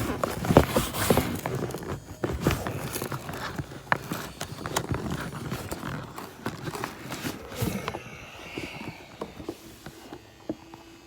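Cardboard packaging being handled: a gift box pulled up out of its shipping box, with rustling, scraping and irregular knocks that die down about eight seconds in.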